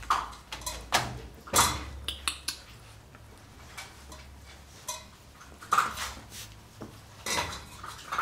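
Irregular metallic clinks and clanks, about eight in all, as puppies jostle in a wire dog crate and nose at its stainless steel bowls.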